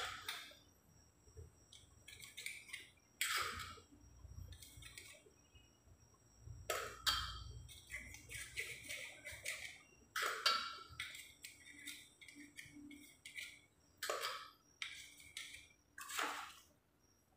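Short scraping and knocking handling sounds, about a dozen spread irregularly, as blue PVC pipe pieces are handled and their ends brushed with solvent cement.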